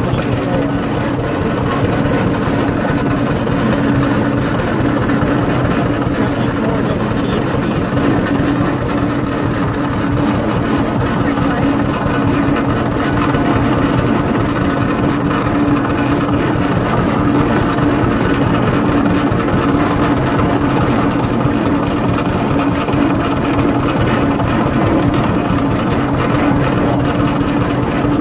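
Older John Deere two-cylinder tractor engine running steadily as the tractor drives across a field, its exhaust note loud and even throughout.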